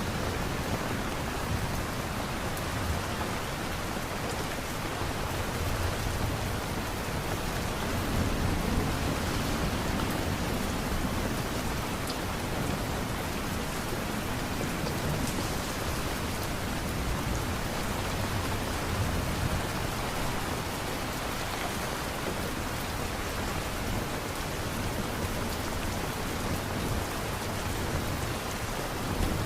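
Steady rain falling, an even hiss of drops on surfaces, with a low rumble swelling and fading a couple of times underneath.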